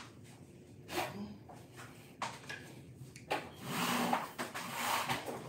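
Household handling noises as a small round metal tabletop mirror is fetched and set up: a couple of sharp knocks, then a few seconds of rustling and scraping.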